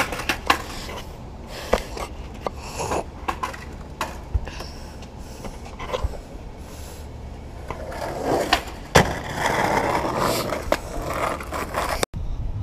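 Skateboard on asphalt: sharp clacks of the board hitting the ground, one loud slap about three-quarters of the way through, and a stretch of wheels rolling and scraping near the end.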